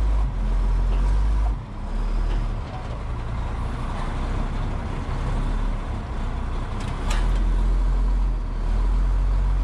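Cummins 6CTA8.3 turbo diesel of an M936A2 wrecker truck running on the road, heard from inside the cab. The low engine drone eases off about a second and a half in and picks up again about seven seconds in.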